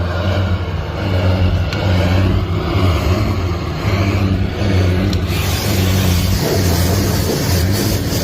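Range Rover 2.0-litre diesel engine held at high revs in repeated surges, burning off oil left in the exhaust after a turbo failure. A louder hiss joins the exhaust noise about five seconds in.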